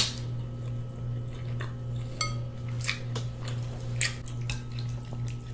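Close-miked eating sounds from oxtails eaten by hand: short, wet clicks and smacks about once a second, with a light clink or two against the plate, over a steady low electrical hum.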